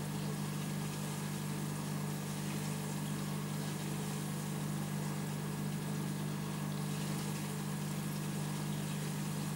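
Aquarium pump running: a steady low hum with an even rush of moving water over it.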